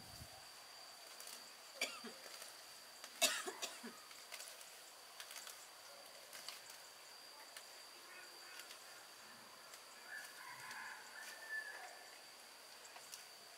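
Faint outdoor ambience with a steady high insect drone, a few sharp clicks, the loudest about three seconds in, and faint chirps near the end.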